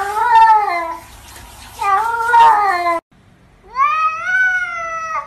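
Cats meowing: two long, wavering meows, then a second cat gives one long meow that rises in pitch and holds.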